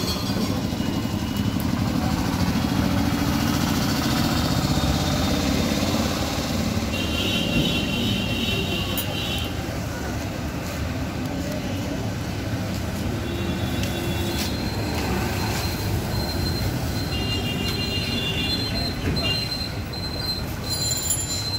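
Street traffic: motorbike and auto-rickshaw engines running and passing, a steady rumble. Two stretches of high-pitched tone sound through it, about seven and seventeen seconds in.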